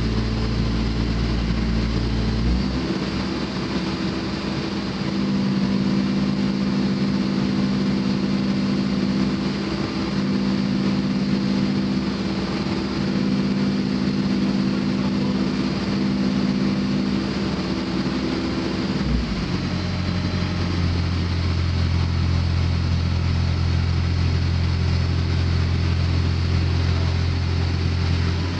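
Case N Series backhoe's diesel engine running steadily. About two and a half seconds in it steps up to a higher speed, and after some sixteen seconds it drops back to a lower, steady speed.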